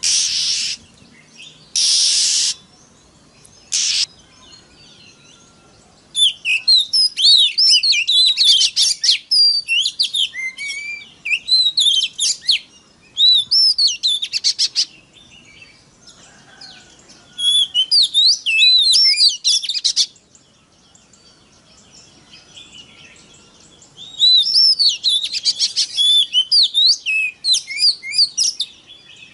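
Oriental magpie-robin (kacer) singing in long bursts of fast, varied whistled phrases, with quiet gaps between bursts. A few short, harsh rasping calls come in the first few seconds.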